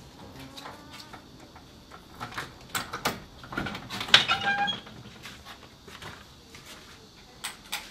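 A key and lock being worked on a door: a few sharp clicks and rattles, then a short squeak as the door is pulled open about four seconds in.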